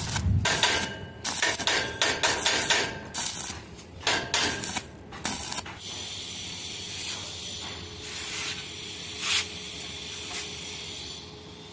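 Stick (arc) welding on stainless steel railing tube: the arc crackles and spits for about the first six seconds, with a few short breaks, then gives way to a quieter steady hiss.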